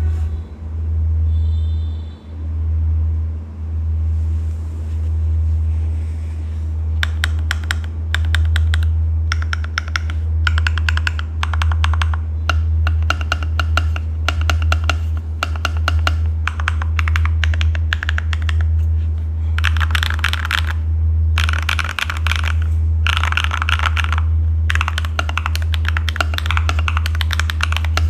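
Typing on an Akko ACR59 mechanical keyboard in HHKB layout with stock HMX Hydra switches: rapid keystrokes in bursts, starting about seven seconds in, over a steady low hum.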